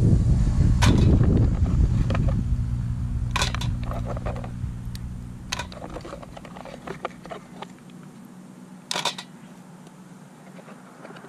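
Mussel shells clacking as they are handled and dropped into a stainless steel pot: a handful of sharp separate clicks, the loudest near the end. A low rumble fades away over the first few seconds.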